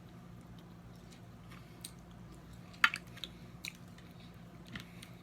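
Eating snow crab legs close to the microphone: scattered sharp clicks and cracks of shell and chewing, the loudest just under three seconds in.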